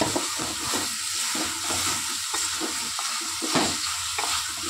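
A tomato, onion and green-chilli masala sizzling in oil in a metal pan, stirred with a wooden spatula that scrapes the pan in repeated strokes. One scrape about three and a half seconds in is louder than the rest.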